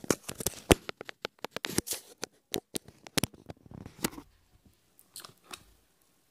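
Handling noise: a quick run of close clicks, taps and rubs as a phone in a plastic case is handled right by the microphone, thinning out after about four seconds to a few last taps.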